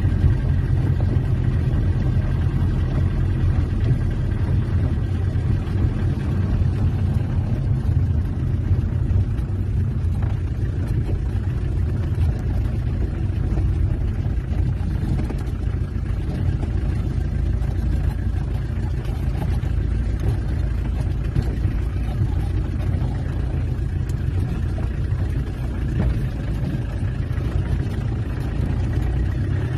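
Peugeot 404 pickup's XD3 four-cylinder diesel engine running under way, heard from inside the cab as a steady low rumble with road noise.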